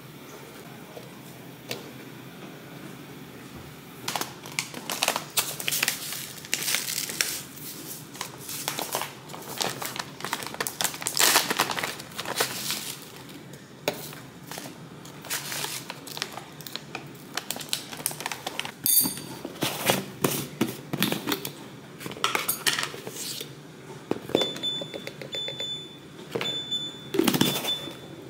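Food packaging crinkling and rustling as it is handled, with a spoon clicking against the containers while ingredients go into a plastic blender cup. Near the end a high electronic beeping starts, repeating.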